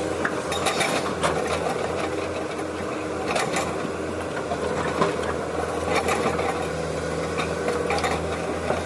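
Excavator running steadily, a low even motor hum with scattered short clicks and rattles.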